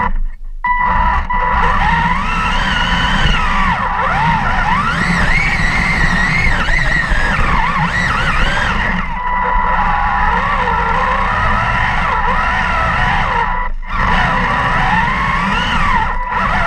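RC tank's electric drive motors whining, the pitch rising and falling with the throttle over a steady high whine, with rattling and rumbling from the tracks, heard close up from on board. The sound drops briefly a few times as the tank eases off.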